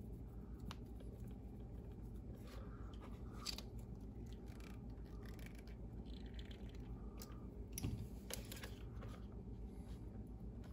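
Faint clicks, knocks and scrapes of small plastic and metal parts being handled on an RC truck chassis, over a steady low hum; the sharpest knock comes about eight seconds in.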